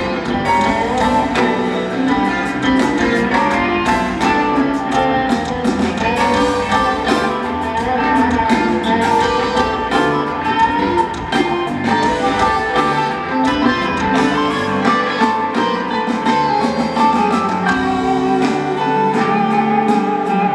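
Rock band playing live, with electric guitar to the fore over drums and keyboards, heard through the stadium PA from the crowd.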